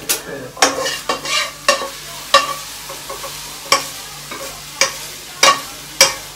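Spatula scraping and knocking against a pan of chicken being stir-fried, a sharp scrape every half second to second or so over a steady sizzle.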